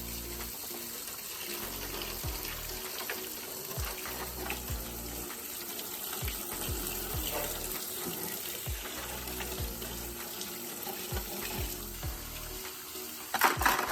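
Water running and splashing, as from a tap, over background music with a steady low beat; a brief loud clatter near the end.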